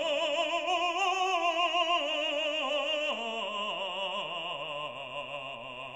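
Background music: a classical, operatic voice holds long notes with wide vibrato, stepping down in pitch a couple of times.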